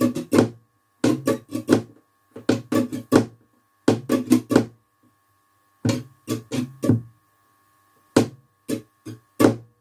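Flamenco guitar strummed in a rumba pattern: quick down-and-up strokes on a held chord, in short groups with brief pauses between them.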